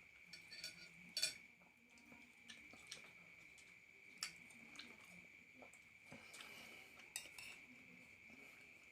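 Quiet close-up eating: soft chewing with scattered clicks of cutlery against a plate, the sharpest about a second in.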